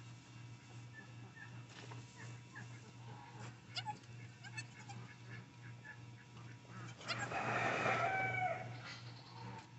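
A Nigerian Dwarf goat bleats once, a drawn-out call lasting about a second and a half, starting about seven seconds in. Before it there are only faint small ticks and rustles over a low steady hum.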